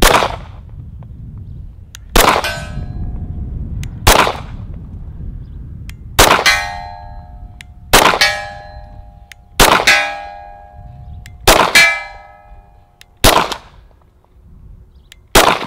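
Ruger Security 9 9mm pistol firing nine slow, aimed shots about two seconds apart. After most of the shots a metallic ring follows, from steel targets being hit.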